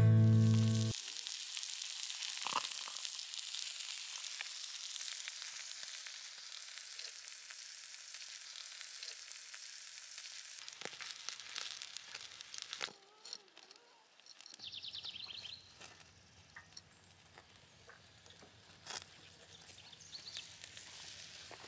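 Sliced meat sizzling on a tabletop Korean barbecue grill plate for about ten seconds, a steady hiss. After that it is quieter, with scattered light clicks and a brief buzz about two-thirds of the way through.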